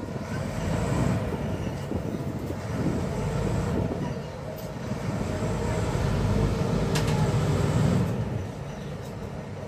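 Ferry's engine running with a low, steady rumble as the boat comes in to dock at the jetty ramp.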